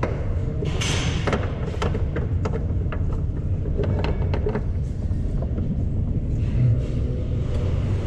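Scattered knocks and clinks of hands and metal parts being handled under a car's front subframe during an engine-mount replacement, over a steady low rumble.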